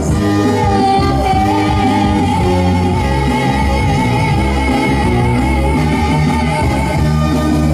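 Live trot song with band accompaniment, a voice holding one long note with vibrato over the band for most of the passage.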